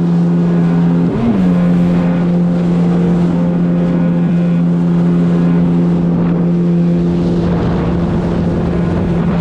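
Jet ski engine running at a steady speed, with a brief rise in pitch about a second in.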